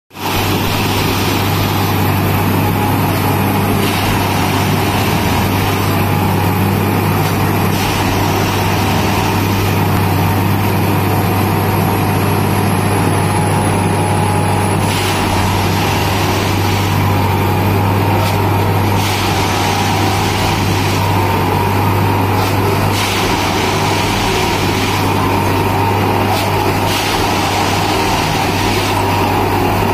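Dynamic Tamping Express 09-3X track-tamping machine's diesel engine running steadily: a constant low hum with a steady higher tone and a faint high whine, broken now and then by brief hisses.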